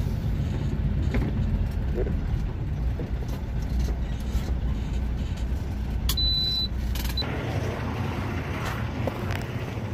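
International LT625 semi tractor's diesel engine rumbling at low speed, heard from inside the cab, with a short high beep about six seconds in. About seven seconds in the engine sound cuts off, leaving lighter outdoor noise.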